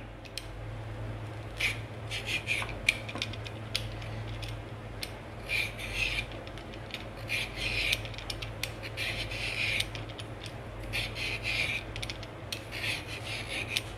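Y-peeler blade shaving a peeled carrot into thin sheets: a series of short rasping scrapes, about one stroke a second, unevenly spaced.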